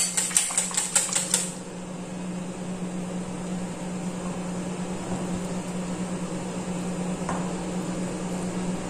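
A utensil stirring and clicking against a bowl of egg-and-cream batter, about four clicks a second, stopping about a second and a half in. A steady low mechanical hum follows.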